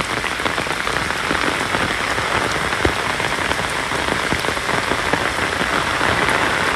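Heavy rain pouring down: a steady, dense hiss with many small drop impacts close by.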